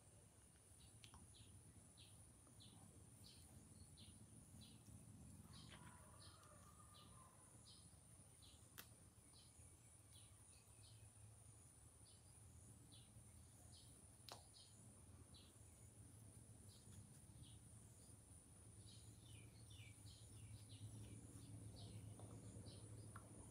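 Near silence: room tone with faint, high bird chirps repeating two or three times a second, over a steady high whine and a low hum, with two soft clicks.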